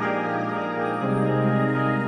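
Music: an instrumental stretch of a slow song, sustained chords with the harmony changing about a second in.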